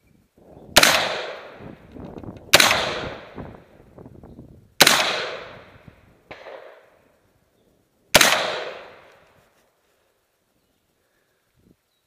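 Four rifle shots over about eight seconds, each a sharp crack that trails off over about a second; the last comes after a longer pause, with a fainter knock between the third and fourth.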